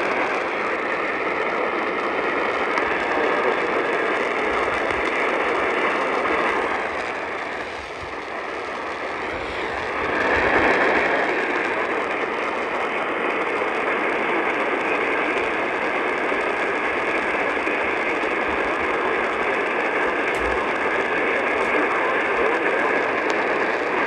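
Static and hiss from a portable radio's speaker, tuned to a weak AM signal on 600 kHz, with a faint steady whistle under the noise. The noise dips about eight seconds in and swells again about ten seconds in.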